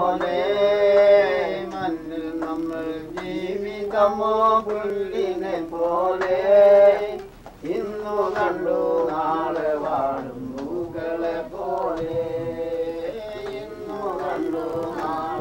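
Singing of a Malayalam Christian devotional song about the Lord's coming: a slow melody with long held notes, with a short breath between phrases about halfway through.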